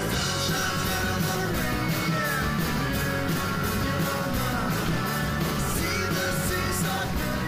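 Rock and roll music with a steady beat.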